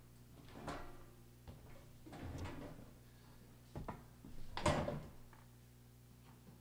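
A few knocks, bumps and scrapes of someone settling in at a table with a microphone on a stand, the loudest a little past halfway, over a steady low hum.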